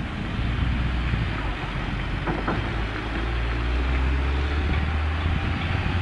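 A motor vehicle's engine running steadily, a low hum over an even rush of road noise.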